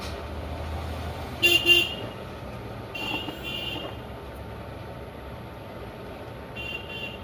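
Short horn toots: two quick ones about a second and a half in, a longer one around three seconds, and a faint pair near the end, over a steady low hum.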